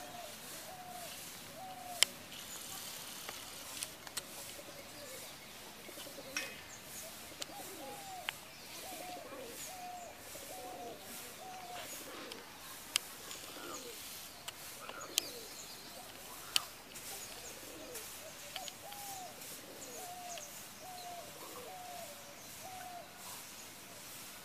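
A bird calling in runs of short, hooked notes, one every half second or so, repeated through the whole stretch. A few sharp clicks stand out above it.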